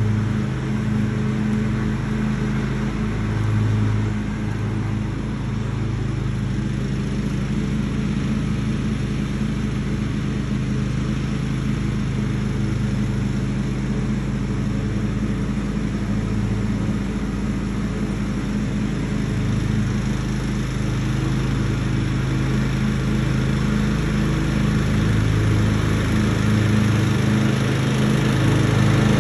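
John Deere X320 riding lawn tractor running steadily while mowing, growing louder over the last few seconds as it comes back toward the listener.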